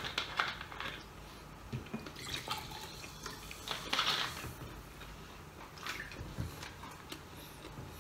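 Cola poured from a plastic bottle into a glass, splashing and hissing in a few short spells, loudest about four seconds in.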